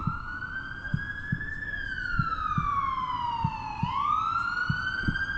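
Emergency vehicle siren wailing, rising and falling slowly in pitch about once every four seconds. Under it is a low, regular thudding about two and a half times a second.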